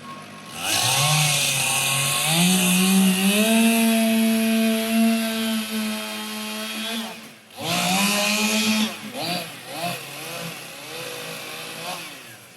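Chainsaw revving up and cutting into a log, held at full speed for several seconds. It drops off briefly about seven seconds in, revs up again, then runs lower near the end.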